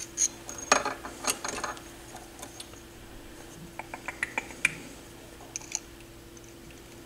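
Small parts of a Technics SL-23 turntable clicking and rattling as a component is handled and fitted back into its base. The clicks come in a cluster about a second in and again around four seconds, over a faint steady hum.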